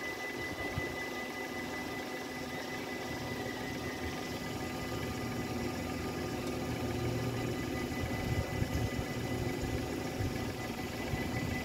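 Warning bells of an automatic half-barrier level crossing ringing as a steady, high-pitched tone, over a low rumble that grows louder toward the end.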